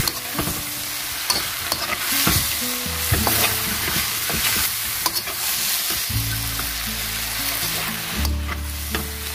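Stir fry of chicken and asparagus sizzling in a hot pan on high heat as it is stirred and tossed, with a steady hiss and repeated short scrapes and clicks of the utensil against the pan.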